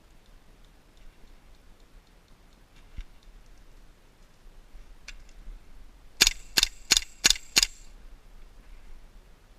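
Airsoft rifle firing five shots in quick succession, about three a second, loud and close.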